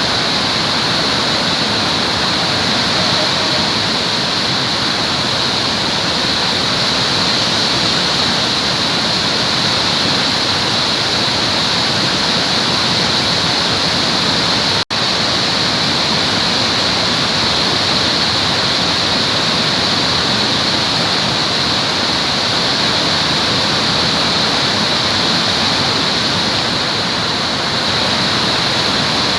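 Waterfall: a steady rush of falling water, with one momentary break in the sound about halfway through.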